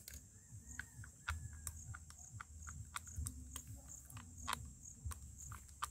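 Plastic strips being bitten through with the teeth and pulled apart by hand: irregular sharp clicks and snaps, the loudest about a second in and about four and a half seconds in. Insects trill steadily behind them.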